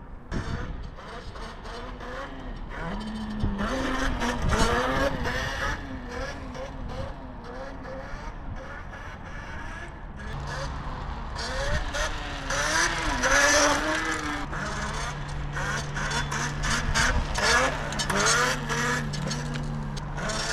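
Electric minibike motor whining, its pitch rising and falling again and again as the throttle is worked, with a steady lower hum joining about halfway through.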